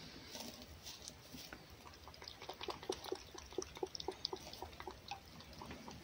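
Fox lapping and chewing raw egg from a bowl: a faint run of quick wet smacks, several a second, starting about a second and a half in.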